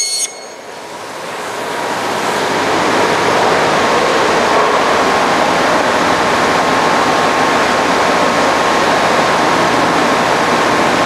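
A Forrest Model 236 bandsaw, running a 3/4-inch, 3-teeth-per-inch blade at 3,000 feet per minute, cutting quickly through 2-inch phenolic foam. It makes a steady rushing hiss that builds over the first few seconds as the slab is fed into the blade, and the foam offers the blade almost no resistance.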